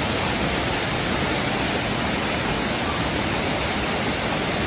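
Steady rush of falling water, like a waterfall, an even noise with no breaks.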